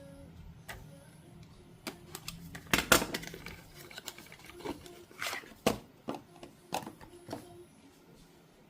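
Irregular knocks and clatters, a quick cluster about three seconds in being the loudest, then single knocks every half second or so, over a low hum that stops around the time of the cluster.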